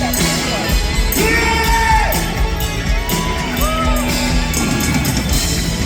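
Live rock band playing, with drums and bass under a singer holding long, wavering notes, and shouts rising over the music.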